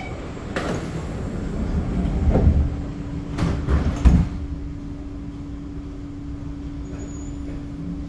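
Sliding passenger doors of a C751B metro train closing, with a series of knocks and heavy thuds as the door leaves shut, the loudest about four seconds in. A steady low hum follows.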